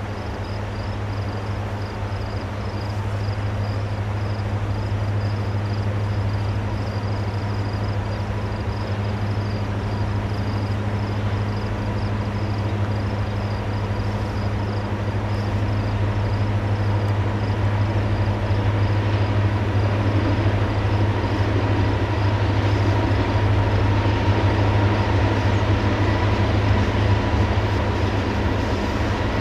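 Distant diesel freight locomotives approaching, their low engine drone growing slowly louder.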